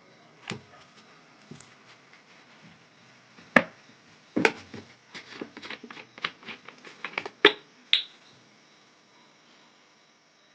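Irregular sharp clicks and light knocks, about a dozen over several seconds, the loudest around the middle, as small metal engine parts and tools are handled on the workbench.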